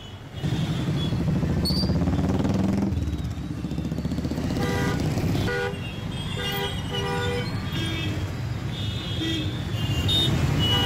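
Jammed road traffic: car and motorcycle engines making a steady low rumble, with repeated short horn honks from about halfway through and again near the end.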